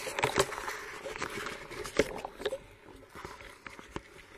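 Underwater sound picked up by a spearfisher's camera pushing through dense reeds: scattered knocks, clicks and scraping over a steady hiss, with one sharper knock about two seconds in.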